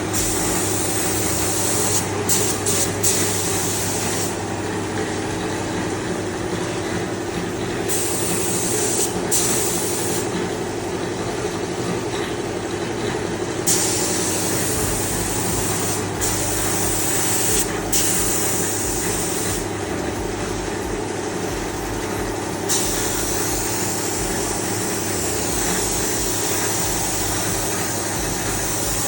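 Paint spray gun hissing on and off in stretches of a few seconds over the steady hum of a running compressor or spray machine motor.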